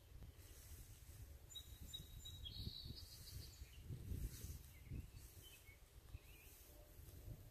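Faint garden ambience: a low rumble throughout, with a brief run of high bird chirps about two and a half seconds in and a few scattered chirps later.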